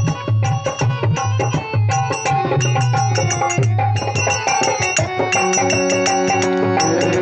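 Live devotional music led by hand drums in a quick, steady rhythm, with sharp high ticks in quick groups over the beat. Held notes come in about five seconds in.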